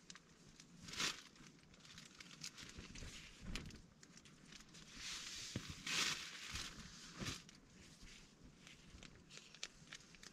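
Small sauce sachets and a food pouch being torn open and handled: several short crinkles and tears of packaging, the loudest about a second in and around the middle.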